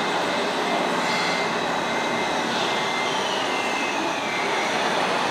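Radio-controlled model construction machines running: a steady mechanical noise with the thin whine of small electric motors and gearboxes, one whine sliding down in pitch a little after the middle.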